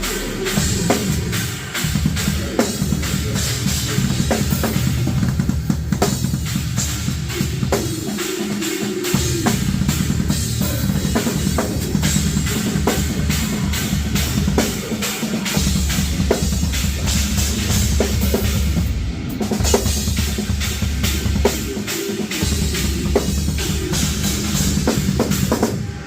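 Live heavy-metal drum kit played fast and hard, heard close on the kit: bass drum, snare and cymbals.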